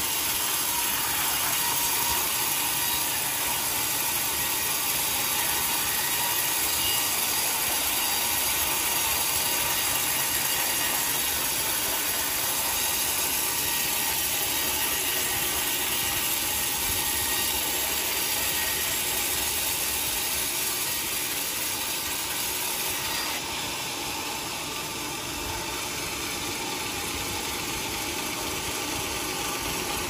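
Large vertical band saw cutting lengthwise through a teak log on a sawmill carriage: a steady mechanical din of the running blade and machinery, growing a little quieter about two-thirds of the way through.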